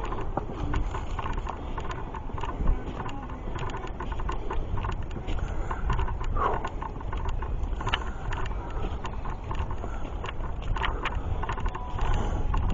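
Hikers' footsteps crunching and scuffing on a rocky trail, irregular steps and small stone knocks over a steady low rumble of wind and handling noise on the microphone.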